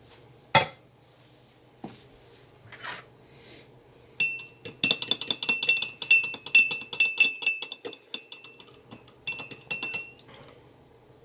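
A spoon stirring in a coffee cup: rapid clinks against the side, each ringing at the same high pitch, starting about four seconds in and lasting about six seconds. A single sharp knock comes just before, near the start.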